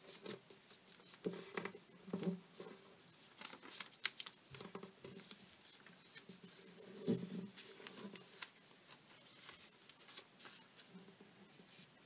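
A sheet of origami paper being creased and pressed flat by fingers: faint, irregular crackling and rustling, with a few soft thuds of hands pressing on the table.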